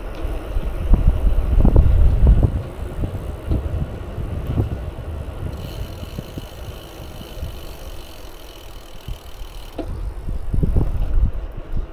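Wind buffeting the microphone of a moving bicycle, with road rumble, loudest in the first couple of seconds and again near the end. A faint steady high whine runs through the middle stretch.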